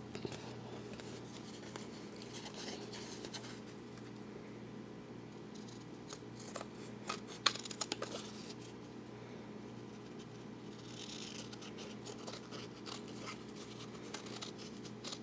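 Scissors snipping thin cotton fabric off the edge of a paper card, a few short cuts at a time with pauses between, the cuts bunched together just past the middle and again near the end.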